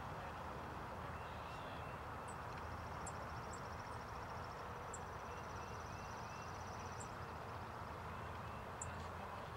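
Outdoor pond ambience: a steady low background noise with small birds chirping. Short high peeps come every second or so, and a fast buzzing trill runs for several seconds from about two seconds in.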